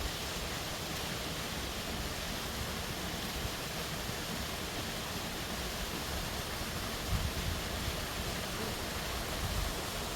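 Steady rain hiss, even and unbroken, with a few low bumps about seven seconds in.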